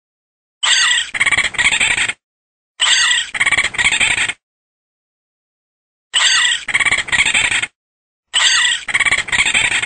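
Raccoon calls, high-pitched, in four bursts of about a second and a half each, every burst a quick run of three pulses, with short silences between.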